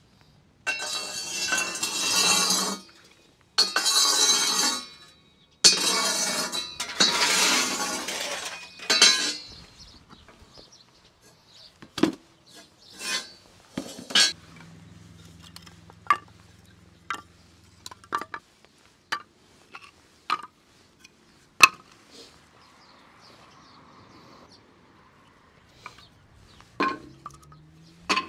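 Kitchen preparation noises: four stretches of loud hissing, crackling noise in the first nine seconds, then scattered single sharp clinks of glass and dishes.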